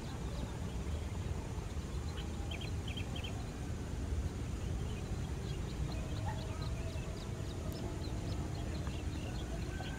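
Steady low outdoor rumble with short bird chirps, a quick cluster about two and a half seconds in and scattered faint ones in the second half; no clear jet engine whine stands out.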